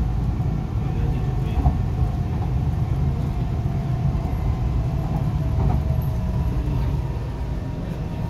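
Cabin noise of an MTR East Rail Line R-Train (Hyundai Rotem electric multiple unit) running at speed: a steady low rumble of wheels on rail, with a faint steady whine above it.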